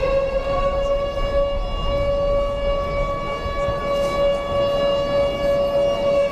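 Air-raid siren sound effect in the dance routine's music, played over the sound system, holding one steady pitch.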